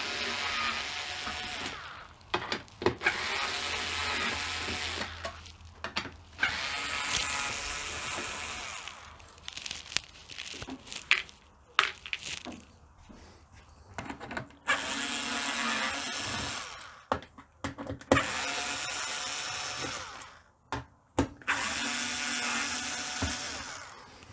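Cordless screwdriver with a Torx T15 bit whirring in about six short runs of two seconds each, backing out the screws along the bottom of a dishwasher's front door panel. Small clicks come between the runs.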